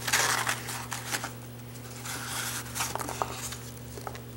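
Hands rummaging in a package: loose packing material rustles and crinkles and a small cardboard box is handled, with a burst of rustling at the start and scattered light clicks after. A steady low hum runs underneath.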